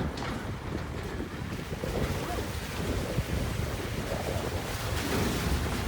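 Wind buffeting the microphone: a continuous low rumble with hiss above it.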